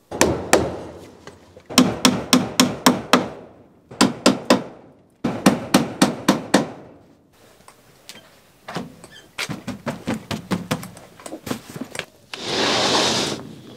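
Hammer driving nails into wood in quick runs of strokes with short pauses, then lighter taps, as flashing is fastened over chicken-coop nesting boxes. A brief rush of noise comes near the end.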